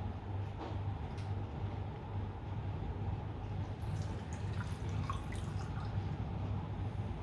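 Petrol poured into a cylinder head's ports for a valve leak test, trickling and dripping as it seeps past leaking valves, with a few faint scattered ticks over a steady low hum.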